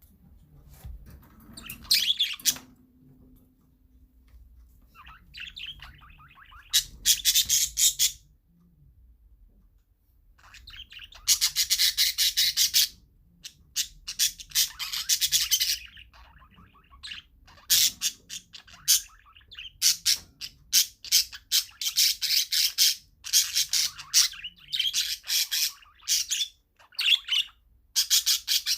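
Parakeets chattering in bursts of rapid high chirps, each a second or two long with short pauses between, the bursts coming more often in the second half.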